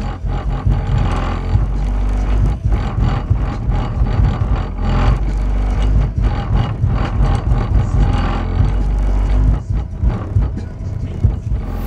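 Bass-heavy music played loud through a 10-inch car subwoofer in a car trunk: deep bass notes held under a steady beat.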